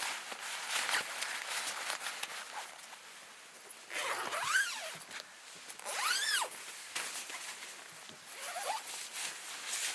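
A zipper being pulled in three strokes, each a rasp whose pitch rises and falls with the pull; the first two are loudest, about 4 and 6 seconds in, and a shorter one comes near the end. Light rustling and clicks of handling come before them.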